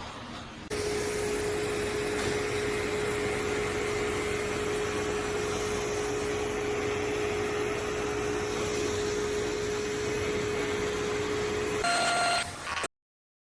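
Pet grooming vacuum's motor running steadily with a constant hum after switching on about a second in. Near the end its sound changes briefly, then it cuts off abruptly.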